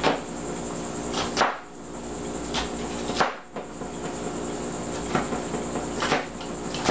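Chef's knife chopping onion finely on a plastic cutting board: sharp knocks of the blade hitting the board at irregular intervals, about one a second.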